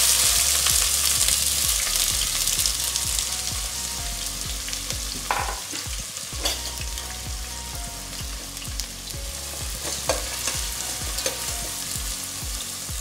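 Chopped onions sizzling in hot oil in a stainless steel pot: a loud hiss as they hit the oil that slowly dies down, with a few sharp metal clinks of a stirring skimmer against the pot.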